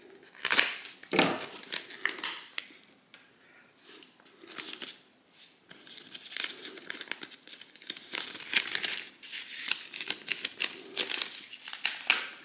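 Packaging crinkling and tearing as a mystery-sticker packet is opened by hand: a few sharp rustles at first, then dense, irregular crinkling through the second half.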